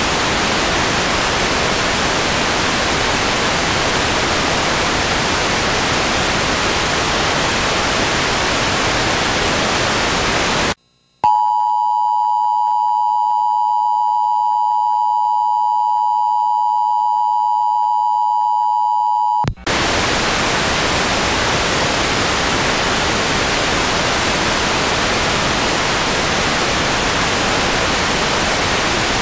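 Television static, the hiss of a lost broadcast signal. About eleven seconds in it cuts out, and a steady tone sounds for about eight seconds before the static returns.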